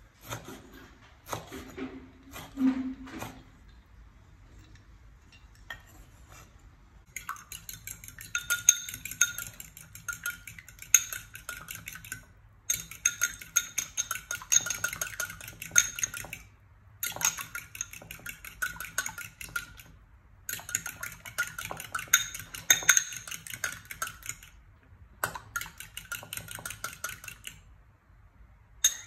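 A fork beating duck eggs in a ceramic bowl: rapid clinking of the fork against the bowl in long runs, with short pauses between them. Before that, a few knocks of a cleaver chopping on a wooden board.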